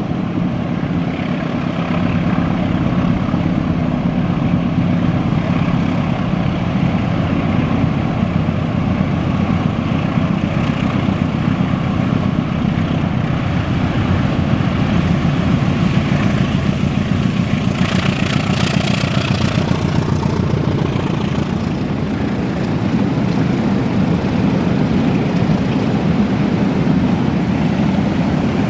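Diesel locomotive hauling a train of fuel tank wagons, its engine running steadily as it approaches and rolls past. A brief run of clicks and rattles comes about two-thirds of the way through.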